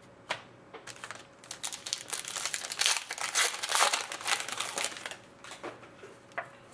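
Foil wrapper of a hockey card pack crinkling and tearing as it is opened and the cards are pulled out. The loudest crinkling falls in the middle, with a few light clicks before and after.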